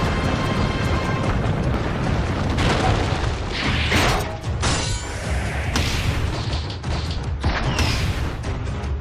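Dragon Ball-style anime fight sound effects over dramatic music: a steady low rumble with four sharp rushing blasts, energy-attack whooshes and booms, about three, four, six and eight seconds in.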